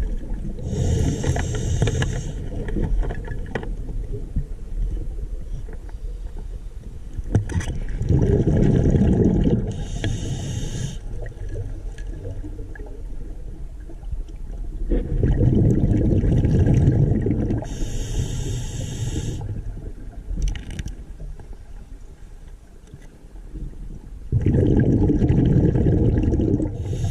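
Scuba diver breathing through a regulator underwater: a short hissing inhale followed by a longer, louder bubbling exhale, repeating about every eight seconds.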